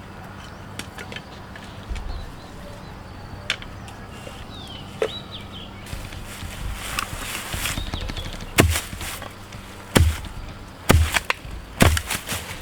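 Wood being chopped: a series of loud, sharp chopping strikes, each with a low thud, starting about two thirds of the way in at roughly one a second. Before them come scattered light knocks and clicks as the wood is handled.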